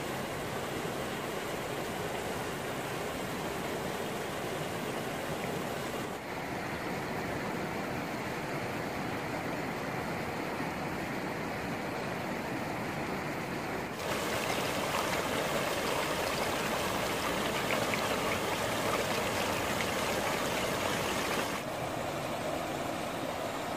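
Muddy rain runoff rushing over rocks in a shallow stream, a steady rushing of water. It jumps louder suddenly about two-thirds of the way through and drops back near the end.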